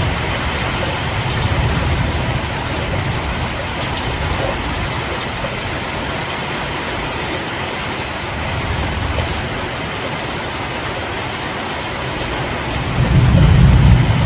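Steady rain falling, an even hiss. A deep low rumble underneath fades early on and swells again near the end.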